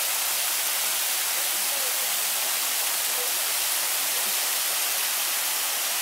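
Bigăr waterfall: water spilling in a thin curtain of strands over a moss-covered rock ledge and splashing into the pool below, a steady, even rush.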